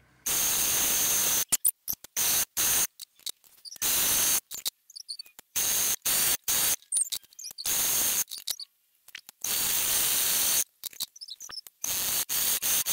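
A vintage overlocker (serger) running at speed as it serges the edges of thick sherpa fabric, in many short runs of about a second each that start and stop abruptly.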